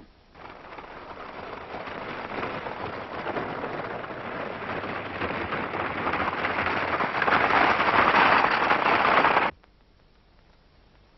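Galloping horses: a dense clatter of many hooves that grows steadily louder, then cuts off abruptly about nine and a half seconds in.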